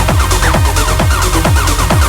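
Techno music: a steady kick-drum beat, about four hits a second, under a repeating synth riff of short falling notes and a constant hi-hat hiss.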